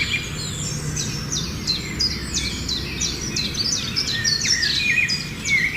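A flock of sparrows chirping, many short overlapping chirps in quick succession, over a steady low background rumble.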